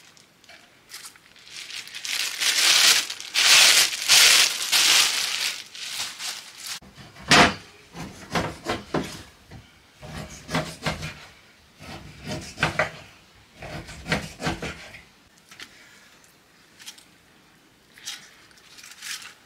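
A few seconds of crinkling rustle. Then one sharp knock and a run of short knife cuts and knocks on a wooden cutting board as a slab of salted pork fat is sliced.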